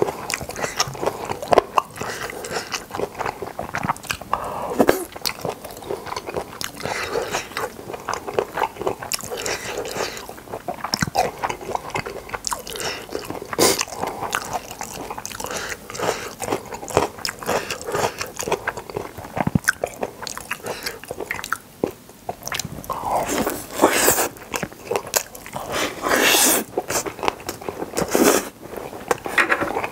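Close-miked chewing and biting: a person eating spicy boneless chicken feet and glass noodles, with irregular wet smacks and crunchy clicks, and a denser run of bites in the last few seconds.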